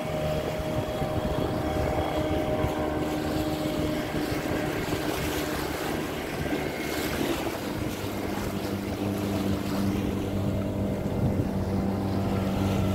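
Fishing boat's engine running steadily while under way at sea, a low hum that grows louder about eight seconds in.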